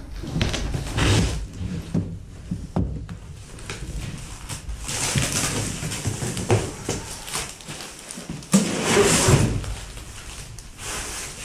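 Packaging being handled and pulled off a motorcycle fairing: irregular rustling and scraping with scattered knocks, louder about a second in and again later on.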